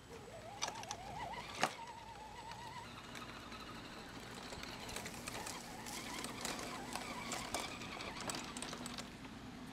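Electric motor and gears of a radio-controlled SCX10 scale crawler truck whining as it drives off towing a trailer, the pitch rising and wavering. Scattered clicks and crackles run throughout, with one sharp click a second and a half in.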